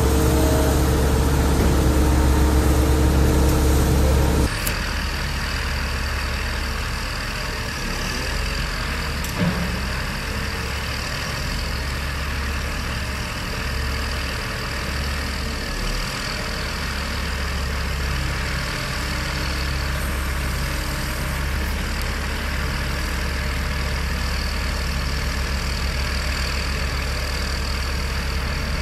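Diesel engine of a motor grader running steadily, loudest in the first few seconds while it works beside a tandem roller. After a sudden change it settles to a quieter, steady idle mixed with the hum of other site machinery and a faint high whine.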